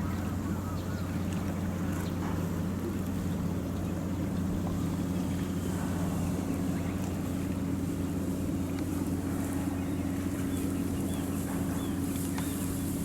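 Steady low drone of running shipboard machinery, with several constant low tones and no change in speed.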